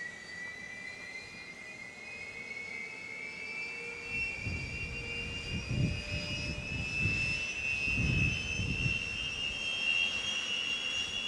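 Kawasaki T-4 jet trainer's twin F3 turbofan engines running on the ground, a whine rising slowly and steadily in pitch as they spool up. From about four seconds in, gusts of wind rumble on the microphone.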